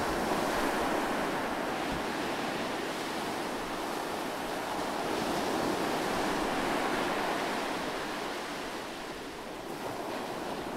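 Sea waves washing: a steady rush of moving water with no distinct splashes, easing slightly near the end.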